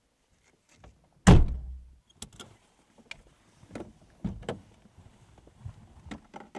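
A car door slams shut about a second in, heard from inside the car as a heavy thud with a low rumble after it. Several lighter knocks and clicks follow as the door and car are handled.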